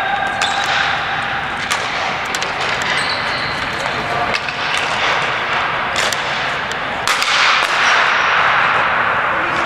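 Ball hockey play: scattered sharp knocks of sticks and ball, with players' voices and a louder stretch of noise about seven seconds in.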